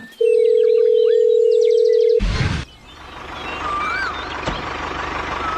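A steady electronic beep tone held for about two seconds, cut off by a short burst of noise. Then a small motor starts running steadily with a fast low pulse, with a few rising-and-falling chirps over it.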